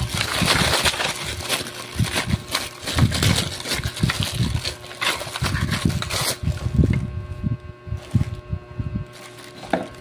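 Clear plastic packaging crinkling and rustling as a vacuum cleaner attachment is unwrapped by hand, dense and loud at first, then dying down to occasional light rustles after about six seconds.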